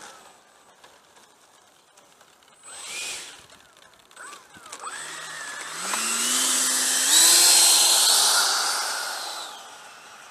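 Electric ducted fan of an RC jet: a short throttle blip about three seconds in, then the fan spools up in steps, a rising whine with a rush of air. It is loudest about seven to eight seconds in, as the jet rolls past, and fades as it moves off down the runway.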